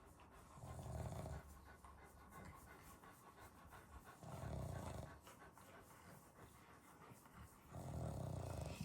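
Dog snoring in its sleep: three slow, rasping snores about three and a half seconds apart.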